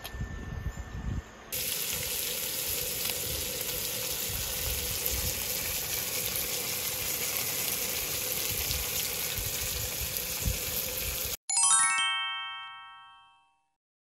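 Meat sizzling on a grill, a steady hiss. Near the end it cuts off abruptly and a bright chime of several bell-like notes rings out and fades away over about two seconds.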